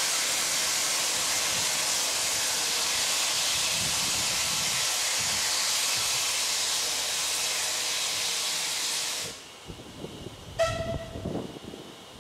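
A 0-6-0 saddle tank steam locomotive blowing off steam in a loud, steady hiss that cuts off a little over nine seconds in. About a second later comes a brief, sharp whistle-like note, followed by low rumbling.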